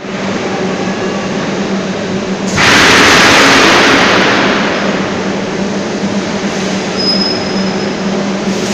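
Heavy steel coil cut-to-length line running, with a steady machine hum and low drone. About two and a half seconds in, a sudden loud rushing noise starts and fades over about two seconds.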